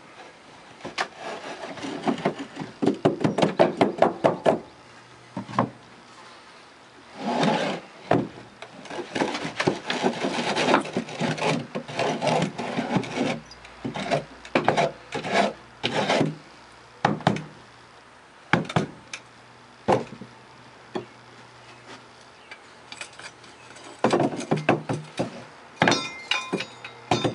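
Greensand mould being broken out of a wooden flask: the packed sand scrapes, crumbles and pours away in several long rushes, broken by many knocks of wood against wood. Near the end a quick run of clinks as the cast aluminium pieces drop free onto the bin's grate.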